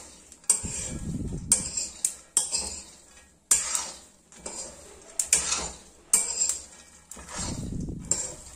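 A steel spoon clinking and scraping against a steel kadhai while stirring peanuts being dry-roasted, the peanuts rattling as they are turned over. The clinks come about once a second, with two longer rattling stirs, about a second in and near the end.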